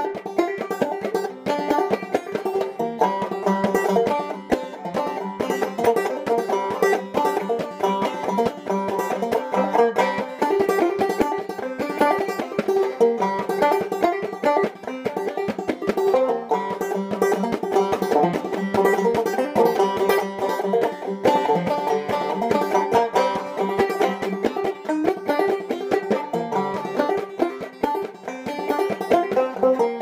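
Banjo played clawhammer style: a fast, steady stream of plucked and brushed notes in an old-time fiddle tune.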